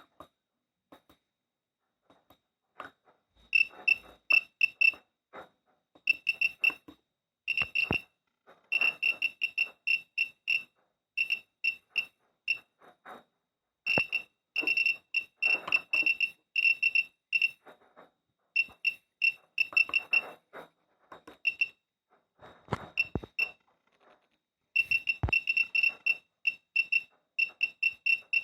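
Geiger counter dosimeter's beeper sounding short high pips, one per detected count, in irregular rapid runs and clusters with short gaps between, showing a fluctuating, fairly high count rate.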